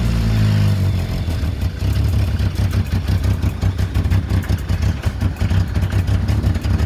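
1995 Ford's engine idling just after an oil change, run so the fresh oil circulates: a steady low rumble that turns into a fast, choppy clatter from about a second in.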